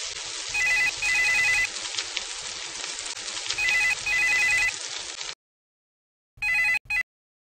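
Landline telephone ringing in the British double-ring pattern: three double rings about three seconds apart. The first two sound over a steady hiss that cuts off suddenly about five seconds in.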